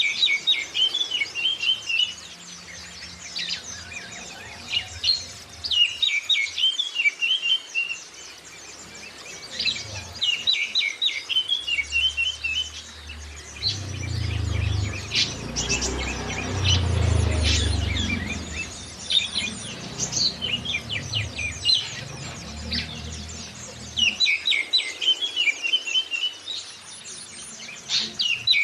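Oriental magpie-robin (kacer) and white-eye birdsong: short bursts of rapid chattering, sweeping notes repeated every few seconds. A low rumble runs under the song through the middle.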